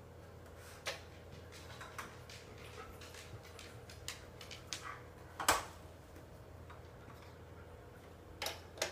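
Scattered light clicks and taps, a few seconds apart, the loudest about five and a half seconds in and two close together near the end, over a steady low hum.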